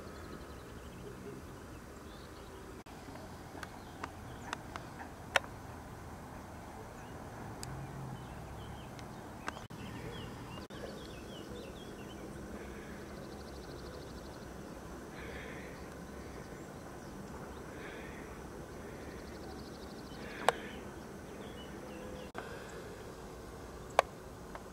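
Faint outdoor ambience with soft chirps now and then and a few sharp clicks, the loudest about five seconds in, about twenty seconds in and near the end.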